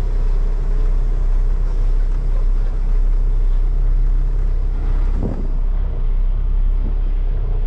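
Peterbilt semi truck's diesel engine running with a steady low rumble as the truck moves off slowly, heard from inside the cab with the driver's window open. A brief, sharper sound cuts in about five seconds in.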